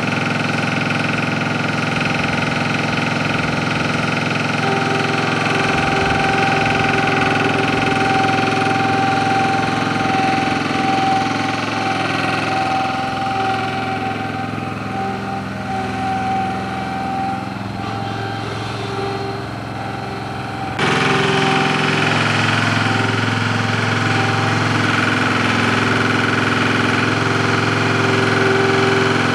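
An engine running steadily at idle; its sound changes abruptly about two-thirds of the way through.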